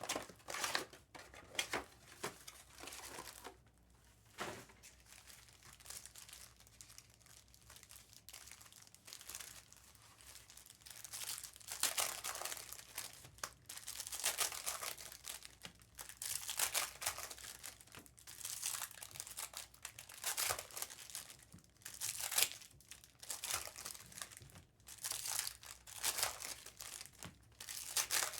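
2023-24 Panini Select basketball hobby packs being torn open, their foil wrappers crinkling and rustling in irregular bursts.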